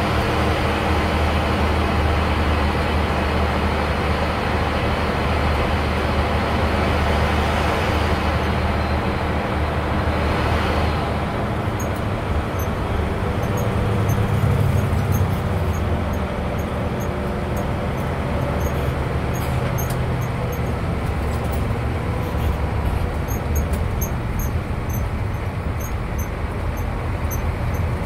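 Bus engine and road noise heard from inside the cabin while driving: a steady low drone with road rumble, swelling briefly about halfway through.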